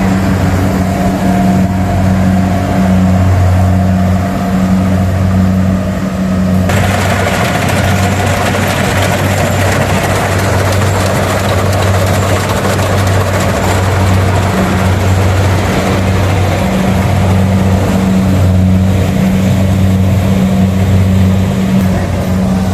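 Engine of a rice harvesting machine running steadily with a low hum. From about seven seconds in, a louder rushing noise is added on top.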